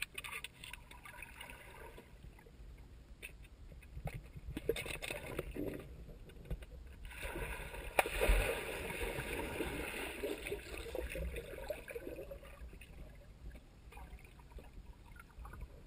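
Muffled pool water recorded from underwater: sloshing and gurgling as a dog paddles at the surface. About eight seconds in comes a sharp splash, followed by a few seconds of louder churning and bubbling.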